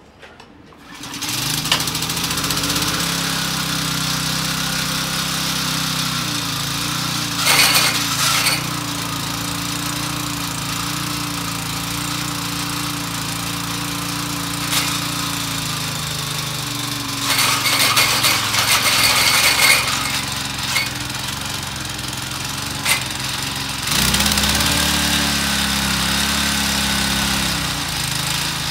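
Honda F210 Komame mini tiller's 2.4-horsepower engine coming up to speed about a second in and running steadily, driving its spinning tines. Twice there is a stretch of harsher clatter. Near the end the engine runs louder and higher, as if revved.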